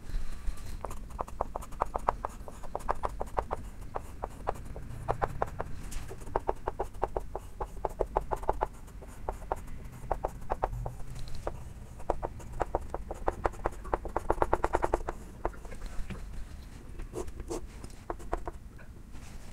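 Chalk writing on a blackboard: quick runs of taps and short scratches as letters are chalked, in several bursts separated by brief pauses.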